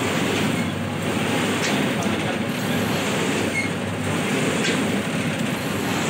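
Kerupuk (cracker) slicing machine running, a steady, dense mechanical rattle with a few faint clicks.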